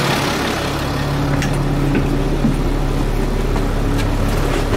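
Caterpillar C7 inline-six diesel engine idling steadily while it warms up toward operating temperature. A few light knocks sound over the idle.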